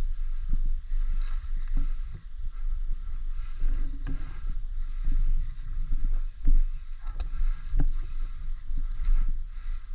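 Low, steady rumble of wind and movement on the microphone, with scattered short knocks and clicks every half second to a second.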